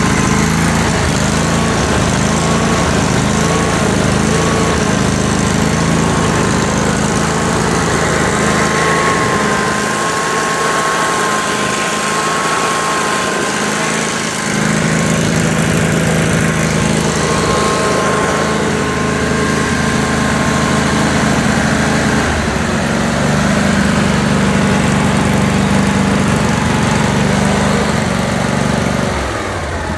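Kohler CV725S 25 hp air-cooled V-twin engine running steadily on a test stand through its muffler. Its low note shifts a couple of times and eases slightly near the end.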